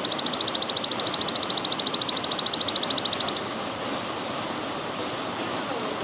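Belalang emas (golden grasshopper) calling in a loud, fast, high buzzing trill of about thirteen pulses a second, which stops abruptly about three and a half seconds in. Trickling water runs steadily underneath.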